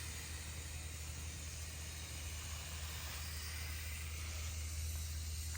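Steady background hiss with a constant low hum underneath.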